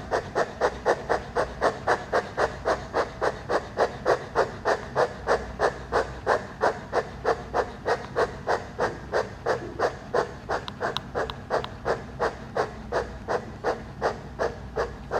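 A person doing yogic dog breathing: rapid panting exhalations through the open mouth with the tongue stuck out, about four a second, steady and even without a break.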